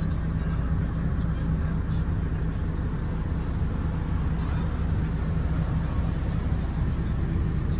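MAN TGX 26.500 tractor unit's straight-six diesel idling steadily, heard from inside the cab as an even low hum.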